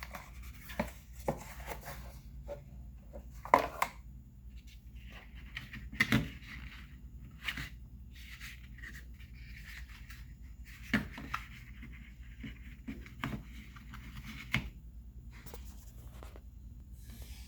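Cardboard and plastic packaging being handled: scattered rustling, scraping and sharp clicks as a power adapter is pulled out of a tight-fitting box insert.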